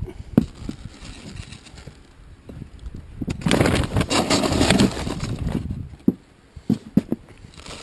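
Rustling of a large woven plastic sack of dry cat food as a hand reaches in to scoop the kibble, loudest for about a second and a half in the middle, with a few short sharp knocks around it.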